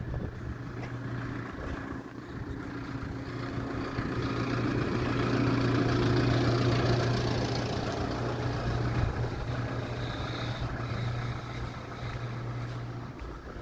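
An engine running with a steady low hum that stops shortly before the end. A broader rush swells to its loudest about halfway through and then fades.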